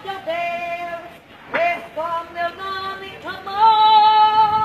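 A woman singing unaccompanied, holding long notes with short breaks between phrases.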